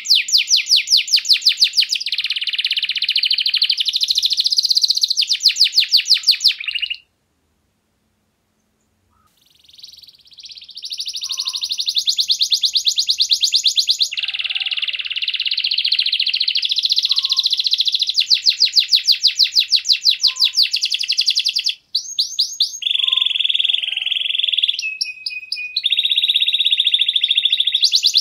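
Domestic canary singing a long, high-pitched song of rapid trills and rolls. The song breaks off for about two and a half seconds after the first quarter, comes back in softly and builds back to full, and stops very briefly once more near the end.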